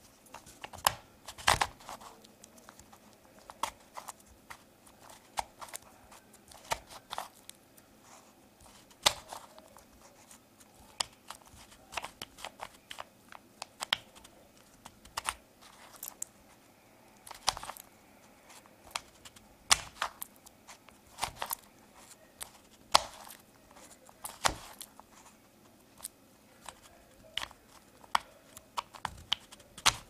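Homemade Rubik's cube being turned by hand: irregular clicks and scrapes as its layers turn, in quick clusters with short pauses between.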